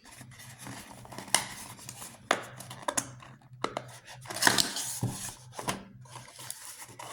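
A small retail box being opened by hand: irregular clicks, scrapes and rustles of cardboard and plastic packaging.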